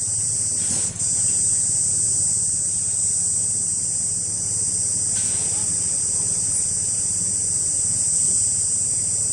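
A steady, loud, high-pitched drone of insects calling in the trees, dipping briefly about a second in.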